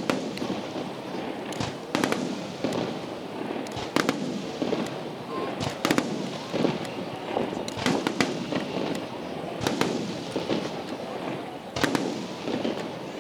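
Fireworks shells bursting, a sharp bang about every two seconds, over the steady chatter of a crowd of spectators.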